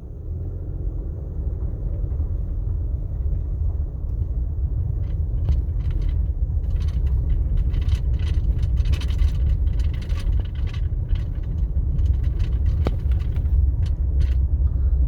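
A vehicle driving slowly up a rough dirt road: a steady low rumble of engine and tyres, with scattered short rattles and crunches from about five seconds in as it goes over rocks and bumps.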